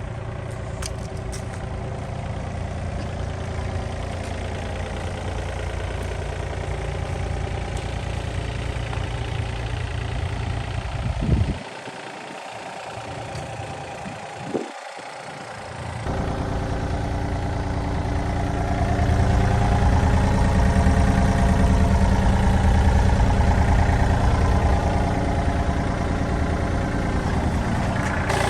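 Yanmar VIO33 mini excavator's diesel engine running steadily. About eleven seconds in there is a sharp knock and the low rumble drops away for about four seconds, with another click in between; then the engine sound returns and runs louder through the second half.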